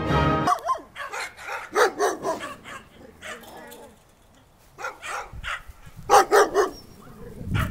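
A dog barking in short sharp barks, in bouts with a lull in the middle, the loudest a quick run of three barks about six seconds in. This is barking with direct eye contact, one of the behaviours listed as a sign of stress. Background music cuts off about half a second in.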